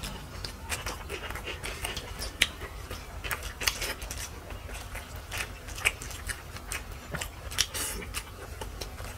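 Eating sounds during a mutton and rice meal: chewing with irregular short clicks and smacks of mouth and food.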